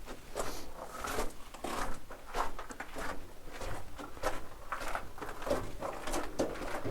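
Footsteps crunching over loose rock rubble on a mine tunnel floor, about one and a half steps a second in an uneven walking rhythm.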